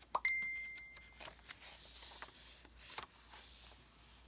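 Thick paper pages of a handmade junk journal being turned and smoothed by hand: soft rustles and light taps. Just after the start a click is followed by a steady high tone lasting about a second.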